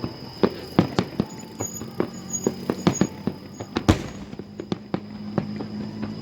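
Aerial fireworks bursting: a quick, irregular run of sharp bangs and crackles, the loudest about four seconds in.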